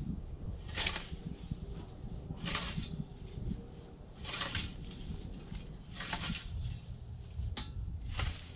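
A scythe swishing through tall grass, one stroke about every second and a half to two seconds, five strokes in all, over a steady low rumble.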